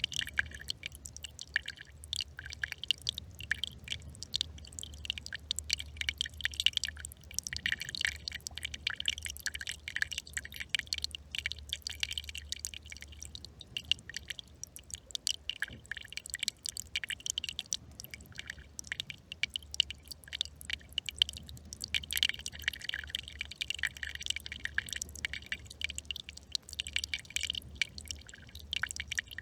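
A small brook trickling: a steady, dense patter of little splashes and drips of running water.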